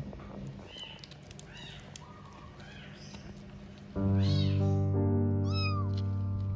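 A kitten meowing several times in short, high, rising-and-falling calls. About four seconds in, louder background music with sustained notes comes in, and one more meow sounds over it.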